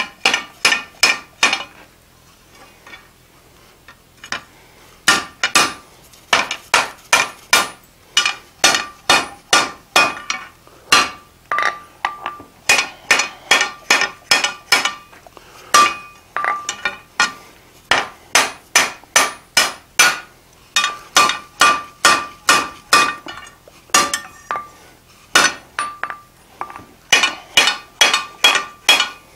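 Hand hammer striking the red-hot corner of a square bar on an anvil, upsetting a square corner. The blows come in runs of about three a second, each with a short metallic ring. There is a pause of a few seconds near the start and brief breaks between runs.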